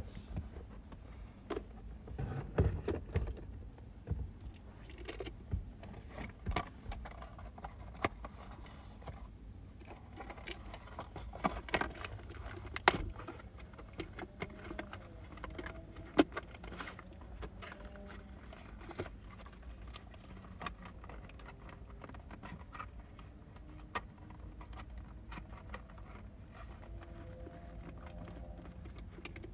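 Irregular metallic clicks, clinks and light knocks of hand tools and metal parts being handled during work on the car, with a few sharper knocks among them.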